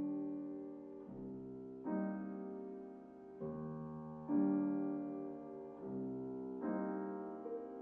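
Piano playing slow chords, a new chord struck every second or two and left to ring and fade.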